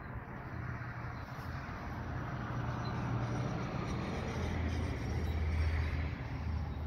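A motor vehicle passing on the road, its low engine rumble and tyre noise swelling to a peak about five seconds in and then easing off.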